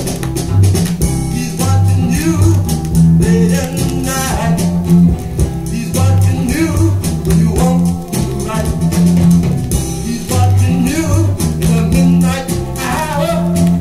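Gospel blues 45 rpm single playing on a turntable: a vocal group singing over guitar and a repeating bass line.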